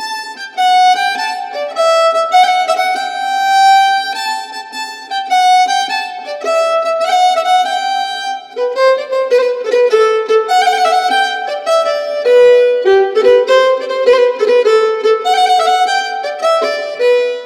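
Background music: a violin playing a melody of short notes, one after another.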